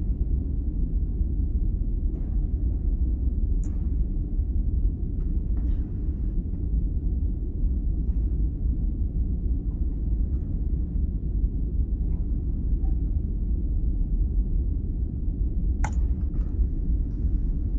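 Steady low rumble of background noise on an open microphone, with a few faint clicks now and then.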